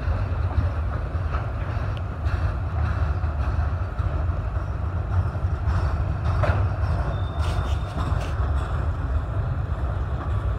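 Freight train of autorack cars rolling past close by: a steady rumble of steel wheels on rail, with occasional clicks as wheels cross rail joints and a brief faint high squeal about seven seconds in.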